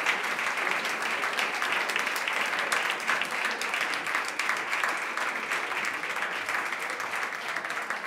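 Audience applauding steadily, many hands clapping at the end of a talk.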